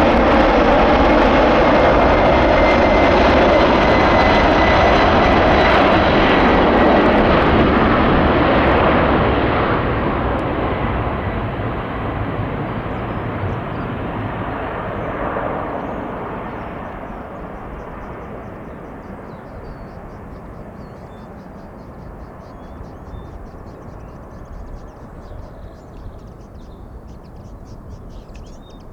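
Four-engine Boeing 747-400 freighter jet at takeoff power: a loud, steady jet roar with a thin whine, which fades away steadily over the last two-thirds as the plane departs. Faint bird calls come through near the end.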